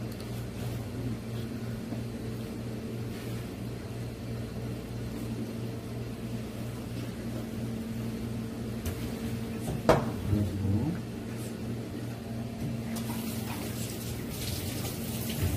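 Steady low machine hum of kitchen equipment, with one sharp knock about ten seconds in as a chef's knife is set down on the plastic cutting board, and a soft hiss near the end.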